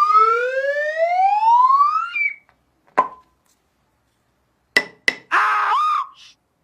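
Cartoon sound effects: a whistle-like tone sliding steadily upward for about two seconds, then a single sharp tap with a short ring, two quick taps, and a brief wobbling squeak.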